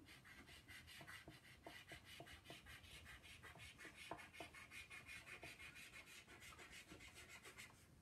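Faint scratching of a brown chalk pastel on plain copy paper, hatched in quick short strokes at about six a second, stopping just before the end.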